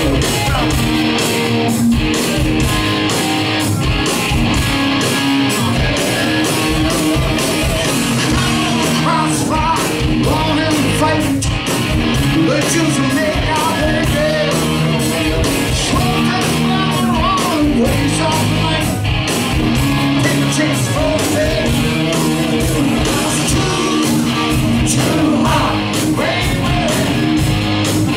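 Hard rock band playing live: electric guitars, bass guitar and drum kit, with a singer, heard loud over the crowd.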